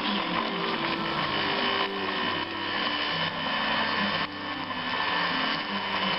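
Model train's small electric motor whirring steadily as it runs on the track.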